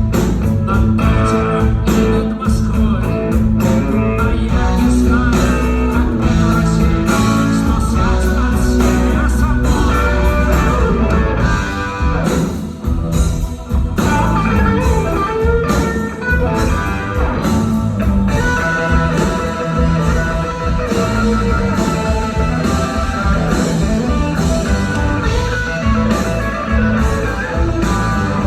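Rock band playing an instrumental passage, with guitar over bass and drums.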